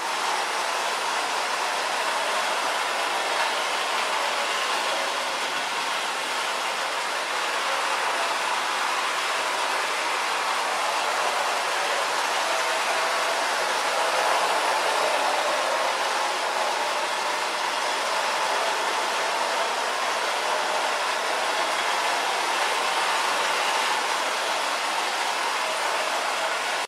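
Prewar standard gauge tinplate toy train running around the layout, a steady rolling and motor noise from its wheels on the three-rail track.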